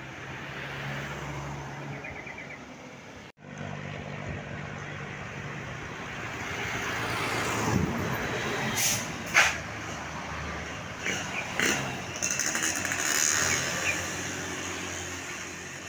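Roadside traffic: engines running, and a large vehicle passes close, growing louder and then fading, with a few short, sharp bursts of hiss around the middle.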